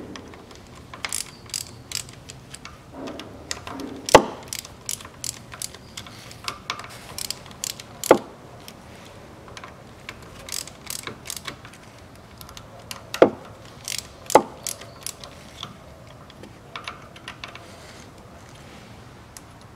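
Hand ratchet clicking in short irregular runs as the bolts holding a Haldex coupling pump are tightened evenly, with a few louder metallic knocks of the tool.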